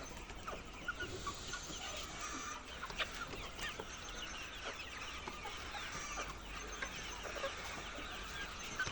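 A large flock of laying hens clucking, with many short calls overlapping all the time, over a steady low hum.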